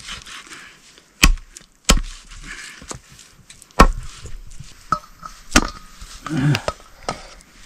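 Blade chopping on a wooden board: four heavy, irregularly spaced strokes, each with a deep thud, and a lighter one between them.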